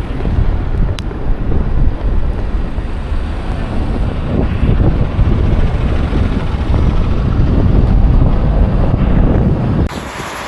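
Strong blizzard wind buffeting the microphone, a loud low rumble that swells and falls in gusts. Near the end the sound changes abruptly to a quieter, hissier wind.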